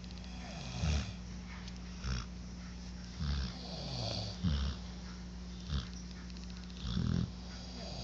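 Two sleepers snoring out of step. Short low snores come about every 1.2 seconds, six in all, with softer breathy snores between them, over a steady low hum.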